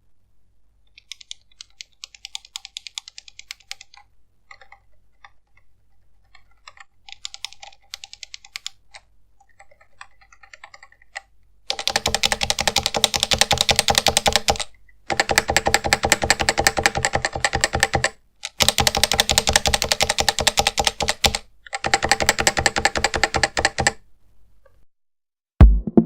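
Topre-switch keyboard keys clattering: faint, scattered rattling clicks at first, then, from about halfway, four loud runs of very fast key clatter, each a few seconds long with short breaks. It is the sound of keys rattling in their housings.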